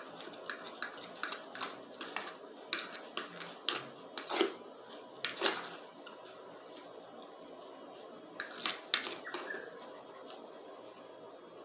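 Close-up eating sounds: chewing and wet mouth clicks, with a fork tapping and scraping a plastic plate of spaghetti. The short clicks come thick and fast in the first half, then only a few near the end.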